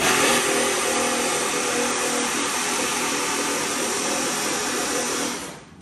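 A machine running steadily with a loud rushing hiss, cutting off sharply near the end.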